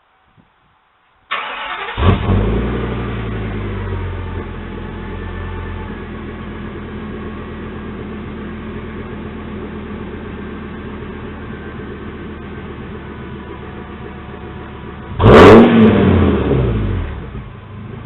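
Ford Econoline's 6.8-litre Triton V10 starting about a second in, running at a fast idle that eases down to a steady idle. Near the end it is revved once, briefly, and drops back to idle.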